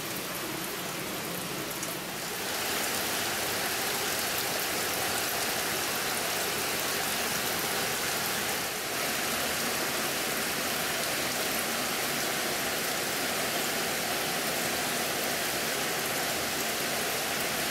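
Steady rush of running or bubbling water in fish tanks, with faint dripping in the first two seconds. It gets louder about two seconds in and then stays even.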